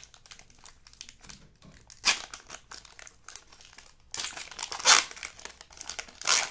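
Foil wrapper of a baseball card pack crinkling as it is handled and ripped open. Scattered crackles, with louder bursts about two seconds in, around four to five seconds in, and just before the end.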